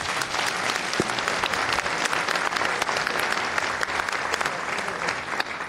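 An audience applauding: dense, steady clapping from many people.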